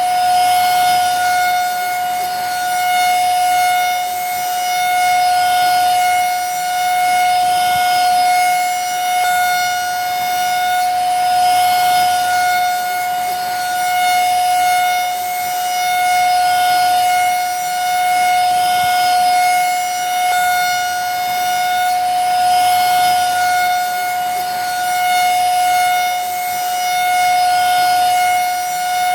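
Vacuum cleaner running steadily: a constant high motor whine over a rushing hiss, swelling slightly about every two seconds.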